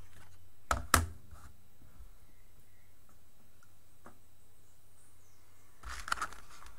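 A sharp knock or two about a second in as a handheld multimeter is put down, then, near the end, crackling of the plastic blister pack of a new multimeter being handled. A low steady hum lies underneath.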